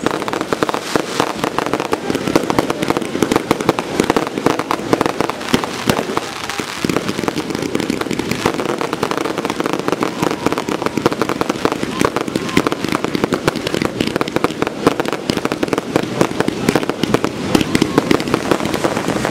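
A long run of firecrackers going off, many rapid irregular cracks in a continuous crackle, over the murmur of a crowd's voices.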